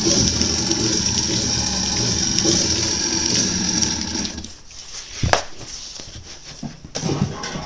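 Hexbug Tombstone toy robot's small electric motor whirring steadily, spinning its 3D-printed blade, then cutting out about four seconds in. A few sharp knocks follow.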